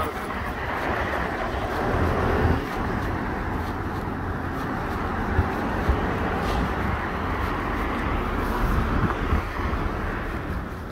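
Wind rumbling on the microphone over a steady hiss of road traffic.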